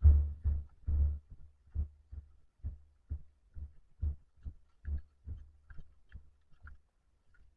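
A steady series of low, dull thumps, about two a second, growing fainter until they stop near the end.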